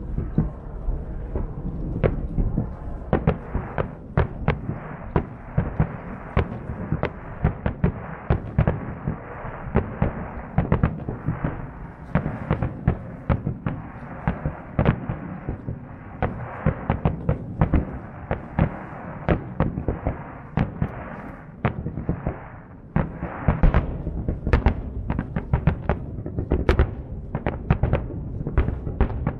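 Aerial firework shells bursting one after another in a continuous barrage of booms and sharp cracks, growing denser and louder in the last several seconds.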